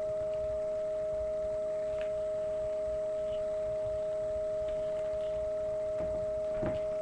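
A steady, unchanging high tone with a weaker lower tone beneath it, plus a couple of faint clicks, one about two seconds in and one near the end.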